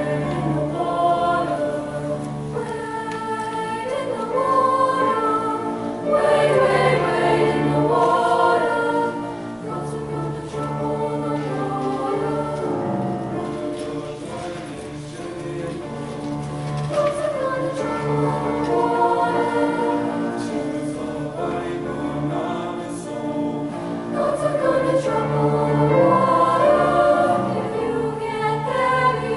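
A school choir singing in parts, with sustained chords that swell louder at times.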